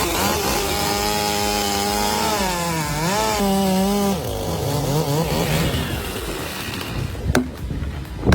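Chainsaw running at high revs, its pitch dipping and recovering about three seconds in, then dropping lower and fading out. A sharp knock comes near the end.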